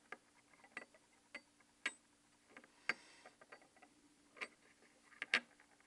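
Scattered light clicks and taps of handling, about ten of them at irregular intervals, a few with a short bright ring, over a faint steady hum.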